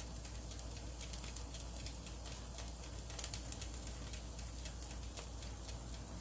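Marinated pork neck sizzling as it grills, a steady dense crackle of small pops and spits.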